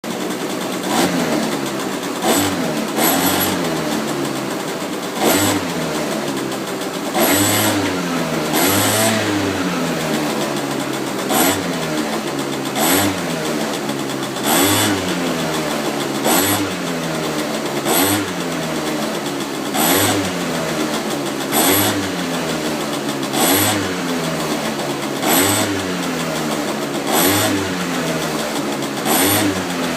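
Suzuki AP50 moped's small two-stroke single-cylinder engine running, blipped on the throttle about every two seconds: each blip is a short rise and fall in pitch, dropping back to a steady idle between.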